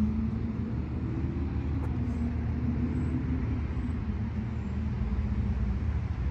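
Steady low rumble of a vehicle engine or road traffic, with a humming note that wavers slightly in pitch and fades near the end.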